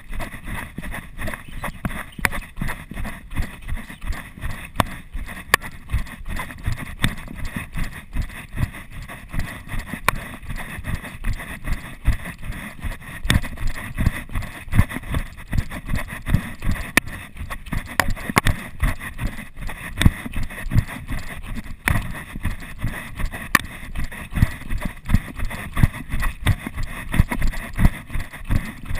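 Running footsteps on a dirt trail, an even rhythm of about three thuds a second, picked up through a chest-mounted GoPro.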